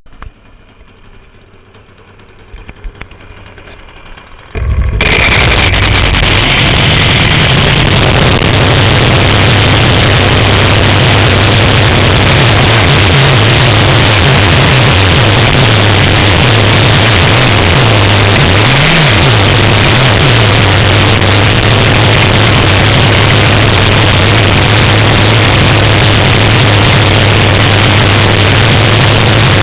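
An engine is started about four and a half seconds in, after a few small clicks, and then runs loud and steady, its pitch wavering slightly now and then.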